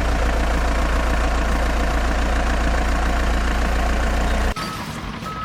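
A heavy engine running steadily with a low rumble, which cuts off abruptly about four and a half seconds in.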